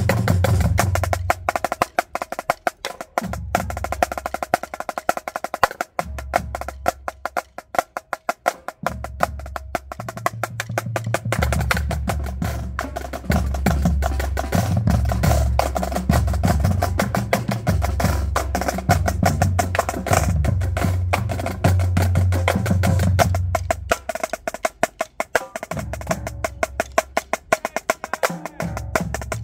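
Marching drumline playing: fast snare drum strokes and rolls, with the bass drums' low notes dropping out twice for a few seconds.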